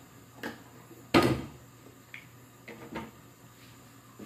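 A few knocks and clatters of things being handled at the stove, with one loud, sharp knock just after a second in and smaller ones before and after it.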